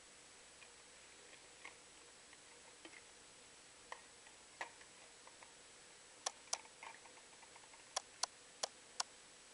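Small plastic clicks and taps from a bottle cap and containers being handled on a countertop: faint and sparse at first, then a run of about six sharper clicks over the last three seconds.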